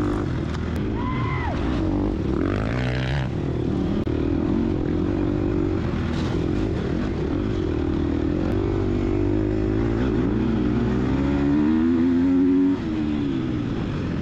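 Gas Gas EX250F dirt bike's 250cc four-stroke single-cylinder engine under racing throttle, revs rising and falling continuously. Near the end the revs climb, then drop off sharply.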